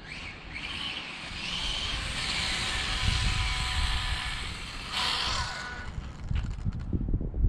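Electric RC drag car making a pass: a high motor whine rising as it accelerates, then a sharp falling whine about five seconds in as it slows. Wind buffets the microphone near the end.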